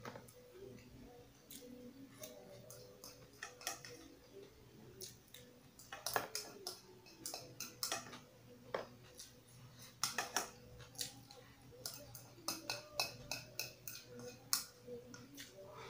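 Close-miked eating sounds of a person chewing, with sharp wet mouth clicks and smacks at irregular intervals. Near the end he sips from a bowl.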